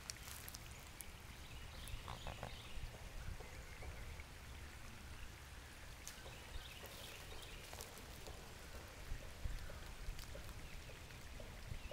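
Faint outdoor ambience: a steady low rumble with scattered light clicks and ticks.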